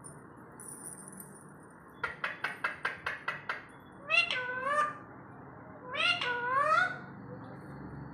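Green parakeet calling: a quick run of about nine short chirps, then two drawn-out meow-like calls that rise in pitch, each under a second long.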